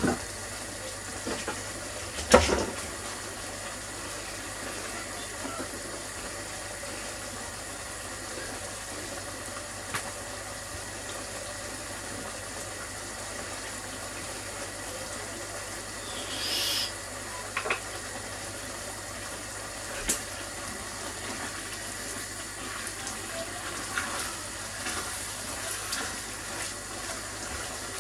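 Diced chicken sizzling in a cast-iron Dutch oven, a steady hiss with a sharp knock about two seconds in and a few fainter clicks later.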